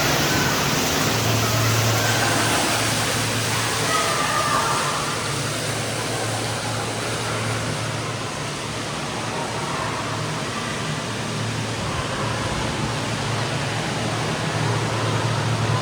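Water running steadily from a bathroom tap, a continuous rushing hiss that is switched on just before and shut off just after.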